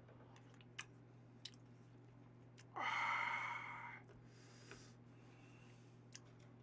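A man's breathy hiss of air through the open mouth, about a second long near the middle, as he reacts to a hot, spicy mouthful of stew. A few faint clicks come before it.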